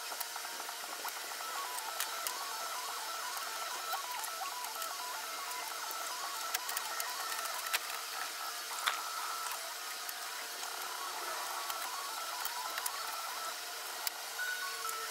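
Scattered light clicks and knocks of hands working the AC condenser and radiator loose from their plastic brackets, over a steady hiss.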